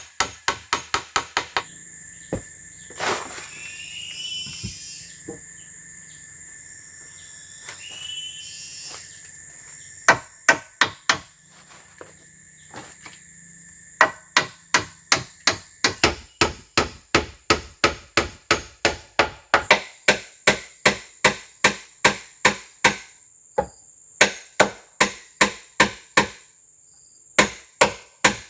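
Repeated blows of a tool on wood, chopping or hammering at about two strikes a second, in runs separated by pauses. Insects drone steadily throughout.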